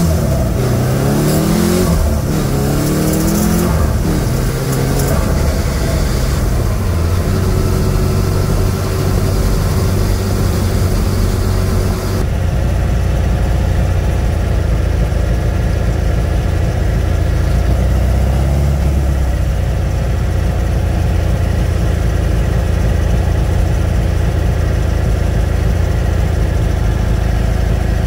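Turbocharged air-cooled VW Beetle engine accelerating hard, its pitch climbing twice through gear changes in the first few seconds, then running steadily at lower revs with a short rise again later. A high rushing noise over the engine falls away about twelve seconds in.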